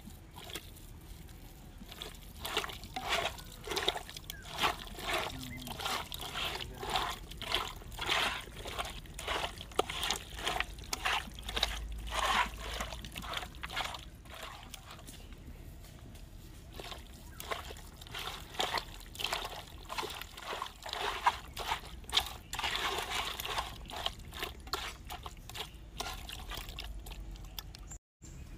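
Hands squeezing and mixing raw chicken pieces with wet curry spice paste in a clay pot: a long run of irregular wet squelches that breaks off suddenly near the end.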